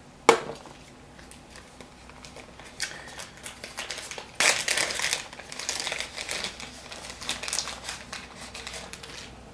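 A sharp tap as a baitcast reel's side plate is set down on a table, then scattered rustling and small clicks of hands handling and rummaging through small items, busiest about halfway through.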